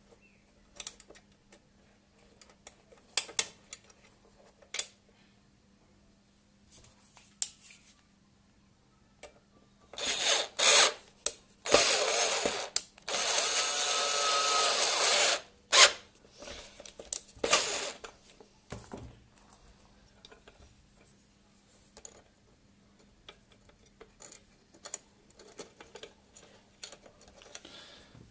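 Kenwood Chef mixer housing parts being worked into place by hand: scattered clicks and knocks, with a few seconds of loud scraping about ten seconds in.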